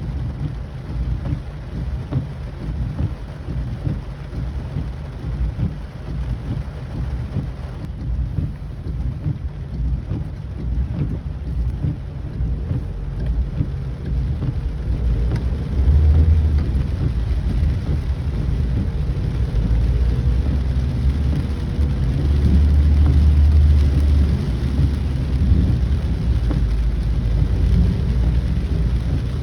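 Heavy rain with a strong, continuous low rumble beneath it that swells louder about halfway through and again later.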